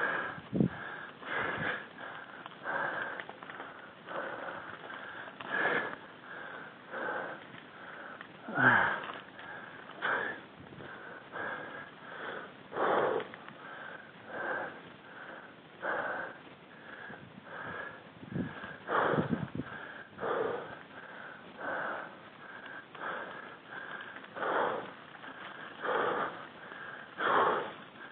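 A mountain biker breathing hard while climbing uphill, with a loud breath about once a second.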